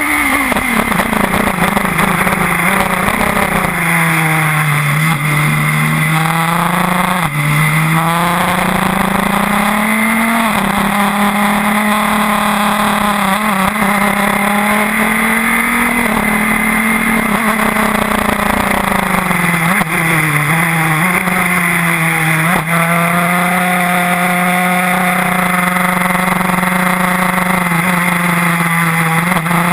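Onboard sound of a Radical SR4 racing sports car's engine at racing speed, its note falling under braking and downshifts and climbing again through the gears, with short breaks at the gear changes and long stretches held at high revs. A steady hiss of wind and road noise lies under it.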